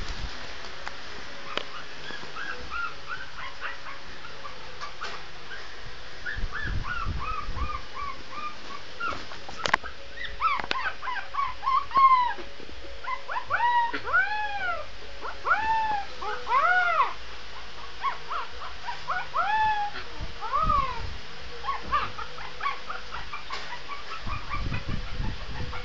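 Shih tzu puppy howling in a string of short, high cries that rise and fall in pitch. The cries come thicker and louder in the middle and die away near the end.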